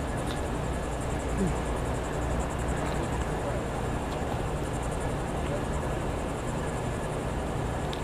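Steady outdoor ambience: a high-pitched insect chorus pulsing rapidly and evenly over a continuous low rumble.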